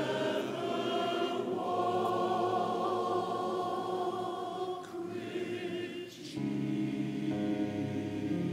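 Large church choir singing in parts on long held notes. A little over six seconds in, the sound shifts suddenly to a steadier, fuller chord that reaches lower.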